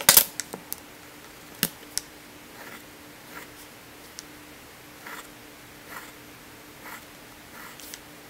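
Soft-lead Dixon Ticonderoga pencil drawing short strokes on paper, a soft scratch about once a second. Sharp clicks come at the start and twice more about one and a half to two seconds in.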